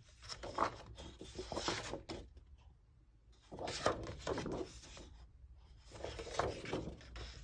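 Sheets of patterned paper rustling and sliding against each other as they are lifted and turned over, in three spells of rustling.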